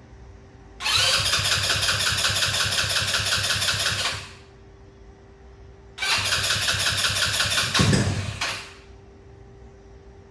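Electric starter cranking the freshly rebuilt GY6-type four-stroke buggy engine on its first start attempt after reassembly, in two tries of about three seconds each with a fast, even pulsing. A low thud comes near the end of the second try.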